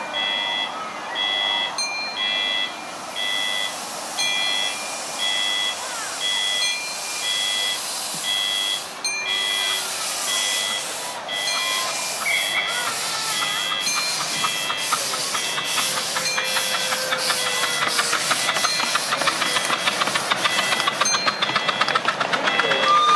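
Live-steam miniature GWR Hall-class locomotive starting away with a passenger train. Its exhaust beats come in about halfway through and quicken steadily as it gathers speed. A repeating electronic beep runs underneath and fades out near the end, and a short whistle begins right at the end.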